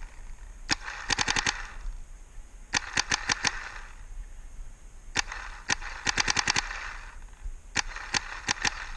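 Bob Long Victory electronic paintball marker with the VIS inline poppet engine, firing four short strings of rapid shots with pauses between them. Each string is about four to six quick sharp pops.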